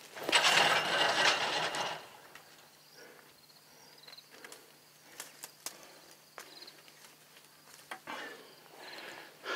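A loud burst of rustling and scraping, about two seconds long, as barbed wire is pulled at a wooden fence brace. After that it is quiet, with scattered light clicks and faint high chirps, and more rustling near the end.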